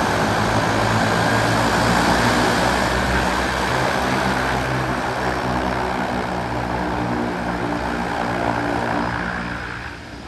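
Seaplane's propeller engine running loud and steady, easing off near the end.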